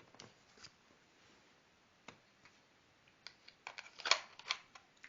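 Light handling noise: scattered soft clicks and rustles, clustered between about three and four and a half seconds in.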